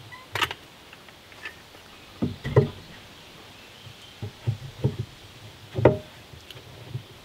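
Wooden board knocking against a plywood wall as it is set and pressed into place by hand: a handful of irregular knocks and thumps, the loudest about two and a half seconds in and again near the end.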